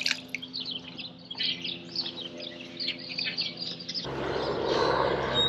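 Small birds chirping and calling repeatedly in quick, short notes over a steady low hum. About four seconds in, the hum changes and a rushing noise comes up beneath the chirps.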